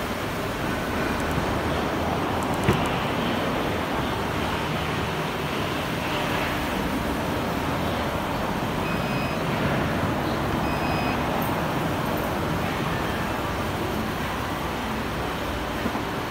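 Aftermarket electric tailgate lift on a 2019 Hyundai Tucson opening and then closing, with steady motor and background noise throughout. One sharp click comes a few seconds in as the latch lets go, and two short high beeps come later as the tailgate starts to close.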